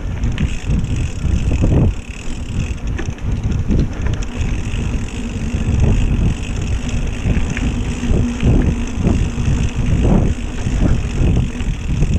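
Mountain bike rolling over a dirt trail, its frame and parts knocking and rattling on bumps, with wind rumbling on the microphone.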